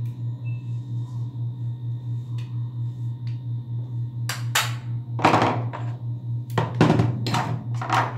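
Sharp clicks and knocks of a revolver and its metal parts being handled and set down on a workbench, several in quick succession from about halfway through. Under them runs a steady low hum that pulses about four times a second.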